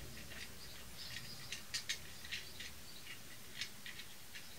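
Faint, irregular small clicks and ticks of a hand-held brake pipe flaring tool being handled and wound against its stop on a copper brake pipe.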